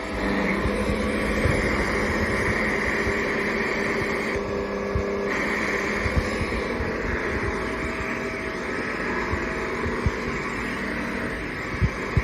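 Hoover HL4 upright vacuum cleaner's motor running steadily with a high whine, stepping up in level just after the start, with a few light knocks near the end.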